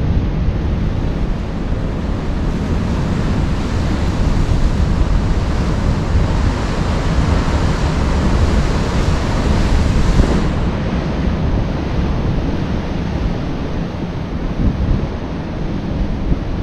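Rough sea waves surging, with wind buffeting the microphone. A hissing wash builds from about three seconds in and cuts off sharply about ten seconds in.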